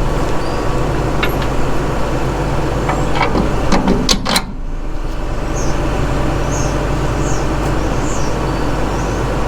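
A steady low mechanical hum under scattered metallic clinks and knocks of hand tools working nuts and bolts on a truck's underside, the loudest a clatter about four seconds in.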